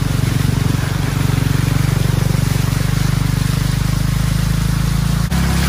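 An engine running steadily, its low hum under a noisy hiss; the sound changes abruptly near the end.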